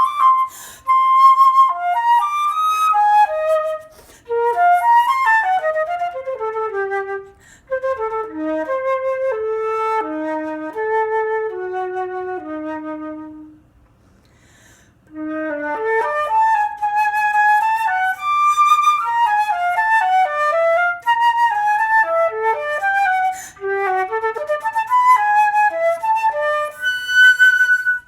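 Solo flute playing quick cascading runs that step down into the low register. About halfway through it breaks for a second or so, then carries on with fast rising and falling figures.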